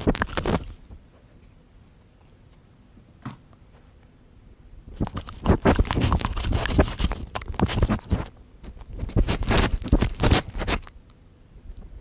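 A dog licking a small camera right against its lens and microphone to get at a treat smeared on it. The tongue strokes scrape and smack in rapid runs: a short burst at the start, a faint tick after about three seconds, then nearly six seconds of fast licking.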